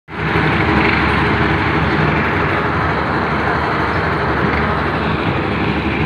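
Concrete mixer machine with lift running steadily: its engine and turning drum make a loud, constant mechanical noise.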